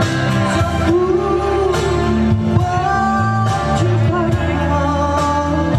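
A man singing live into a microphone, holding long notes, over amplified backing music with a steady beat.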